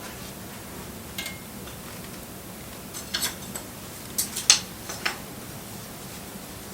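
Wood fire crackling: a steady hiss with scattered sharp pops, and a cluster of louder cracks between about three and five seconds in.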